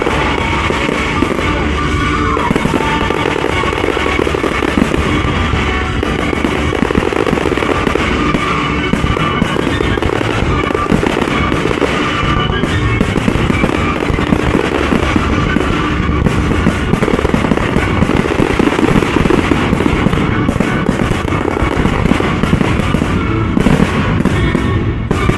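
Fireworks shells bursting in a dense, rapid barrage over loud music, the closing finale of a pyromusical show.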